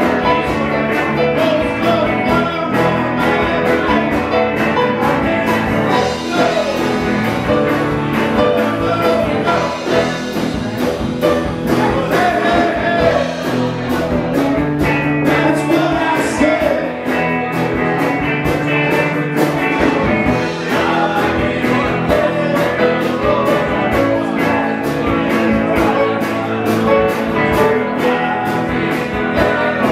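Live band playing a rock song with a singer's lead vocal over electric guitars and keyboard, driven by a steady beat.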